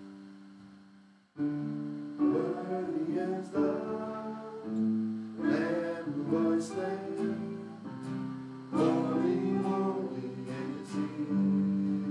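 Acoustic guitar strumming a worship song with a voice singing the opening lines over it. A chord fades out, there is a brief pause, then the guitar comes back in about a second and a half in and the singing begins soon after.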